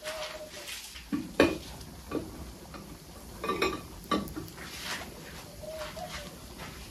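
Knocks and clinks of pots being lifted and set down on a concrete wall. The loudest knock comes about a second and a half in, with another cluster around four seconds. A dove coos briefly at the start and again near the end.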